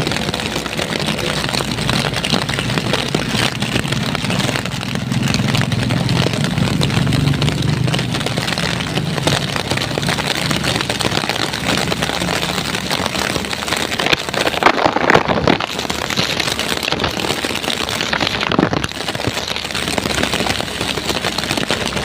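Heavy storm rain pouring steadily, with a vehicle engine running low underneath for a few seconds early on, and two brief louder rushes of noise in the second half.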